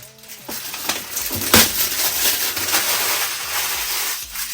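Packaging rustling and crinkling close to the microphone as a wig is unwrapped, with one sharp crackle about a second and a half in.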